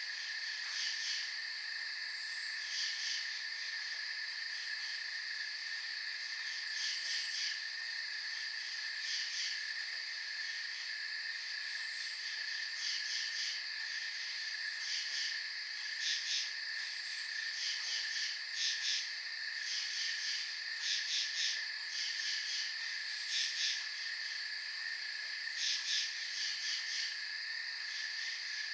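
Late-summer night insect chorus: a steady, unbroken high cricket trill, with short groups of raspy pulses from other insects repeating every second or two.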